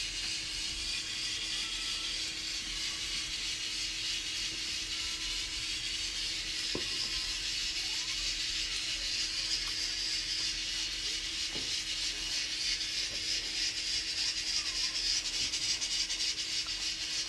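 Water at a rolling boil in a wide pan, bubbling and hissing steadily, with a steady low hum underneath and a couple of faint knocks as pork back bones go into the pot.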